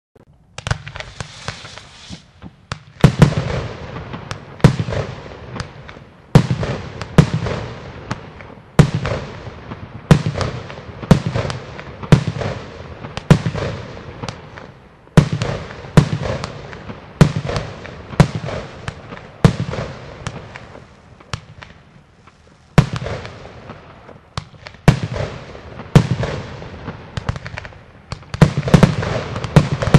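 Xplode fireworks box firing shot after shot, a loud bang roughly every second or so with smaller pops and crackle in between. The first loud bang comes about three seconds in.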